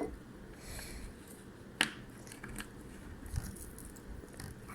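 Faint scattered clicks, rustles and scrapes from handling the homemade slime mixture, its bowl and utensils, with one sharp click about two seconds in and a soft knock a little later.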